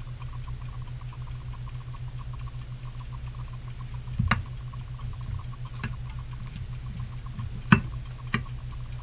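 A utensil clinking against a glass mixing bowl as chopped vegetables are tossed: four sharp clinks, the loudest about three-quarters of the way through, over a steady low hum.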